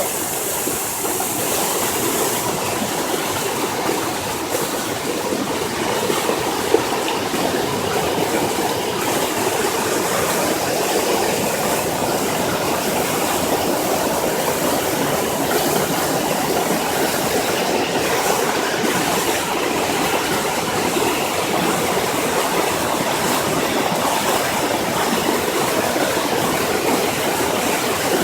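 Rushing floodwater, a loud, steady roar of fast-moving water with no breaks.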